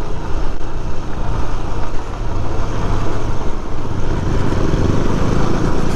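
KTM Duke 125's single-cylinder engine running steadily while riding, with a steady rush of wind and road noise over it.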